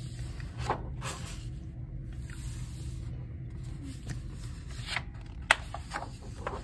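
Loose, unbound pages of a large photo book being handled and shuffled: paper rustling and sliding, with a few sharp paper taps, the loudest about five and a half seconds in.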